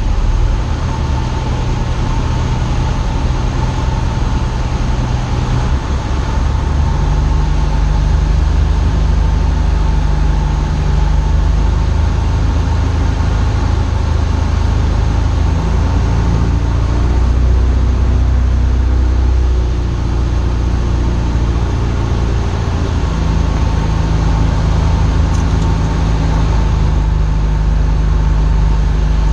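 Cessna 172 Skyhawk's piston engine and propeller droning steadily on final approach, the pitch of the hum shifting a few times as power is adjusted.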